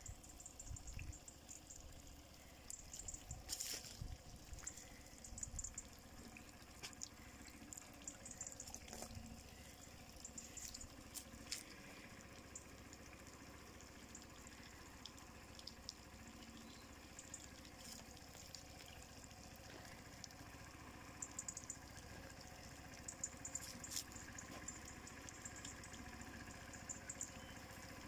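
Faint trickling and dripping of water from a drip-irrigation line at the base of prickly pear cacti, with scattered small crackles and ticks.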